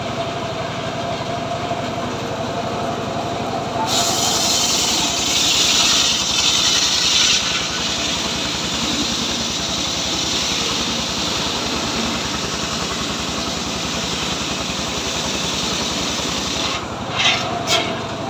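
Homemade engine-driven circular sawmill ripping a log lengthwise. The engine and free-running blade give a steady whine at first. About four seconds in the blade bites into the wood and a loud, high rasping cut starts, strongest for the first few seconds. The cut runs until near the end, when a few sharp knocks sound and the free-running whine returns.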